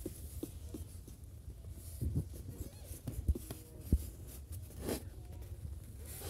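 Scratchy rustling and soft clicks of a hand stroking nursing kittens against the mother cat's fur, over a steady low rumble, with a few louder soft knocks partway through.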